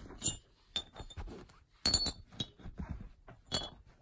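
Small sanded metal mine-rail spikes being set down on a cloth and clinking against one another. There are a handful of short metallic clinks, each with a brief ring, spread across the few seconds and loudest about two seconds in.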